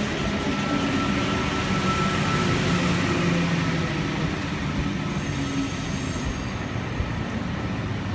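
Double-deck V-set electric intercity train rolling in alongside the platform and slowing, its running gear and motors making a steady rumble with faint humming tones that step in pitch. A brief high squeal comes about five seconds in.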